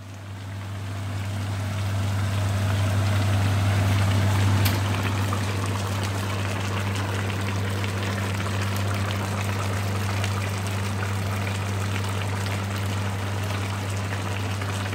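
A pot of chicken soup boiling, a dense bubbling and crackling, over a steady low hum; it fades in over the first couple of seconds.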